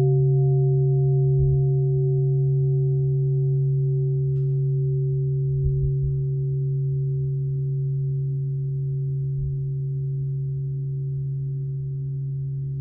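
A large struck bowl bell, the kind that opens Zen sutra chanting, rings out with a deep, steady hum and a few higher overtones, slowly fading.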